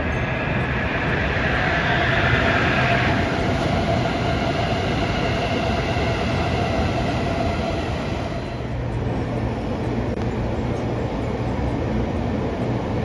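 A train passing: a steady rumble of wheels on rail with a faint whining tone. It is loudest and brightest two to three seconds in, and its higher sound falls away about eight and a half seconds in.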